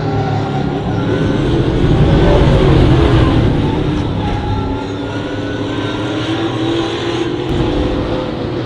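Several Trans Am race cars' V8 engines running hard on the circuit, their notes rising and falling as they go by. The sound is loudest about two to three seconds in.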